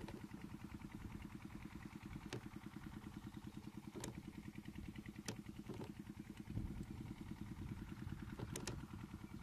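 Engine of a safari vehicle idling steadily in a rapid low pulse. Short sharp clicks come through now and then, about six times.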